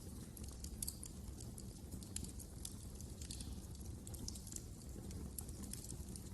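Wood fire in a fireplace crackling, with many small irregular pops and snaps over a low, steady rumble of the flames.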